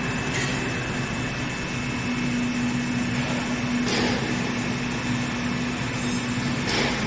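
Steady whir and hum of an H-beam assembly, welding and straightening machine running, its hydraulic oil pump on and the conveyor just started, with a low hum tone throughout. A few faint knocks come through about half a second in, in the middle and near the end.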